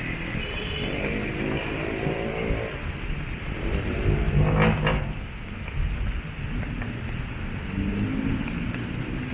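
Street traffic: vehicle engines passing, with the loudest vehicle going by about four and a half seconds in, over a steady low rumble.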